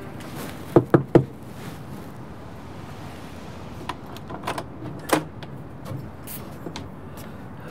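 Three quick knocks on a front door, close together about a second in, then a few lighter clicks a few seconds later.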